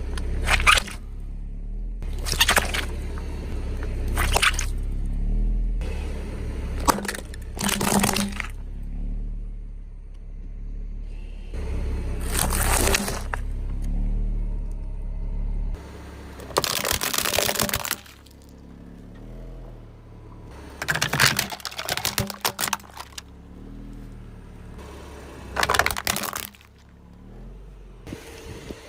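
Car tyres rolling over objects and crushing them: a series of separate crunching and cracking noises, one lasting about two seconds, over a low engine rumble that drops away about halfway through.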